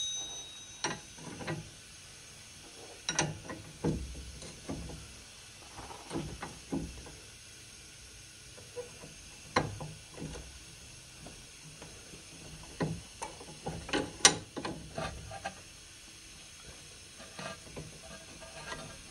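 Wrench clicking and clinking in short irregular bursts as the stuck 19 mm nut is worked off a sway bar link stud, the stud held from spinning with a 5 mm Allen key. The sharpest click comes about 14 seconds in.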